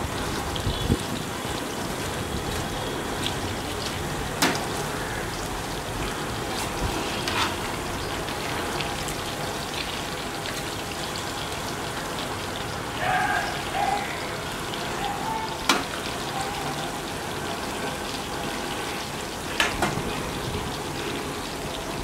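Chicken pakoras deep-frying in hot oil in a metal kadai: a steady sizzle of bubbling oil, with a few sharp clicks as a perforated metal ladle stirs and knocks against the pan.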